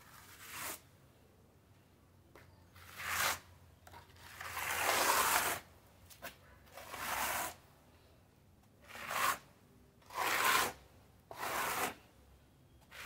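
Hand plastering float scraping soft cement mortar across a rough concrete wall: about seven rasping strokes with short pauses between them, the longest lasting over a second.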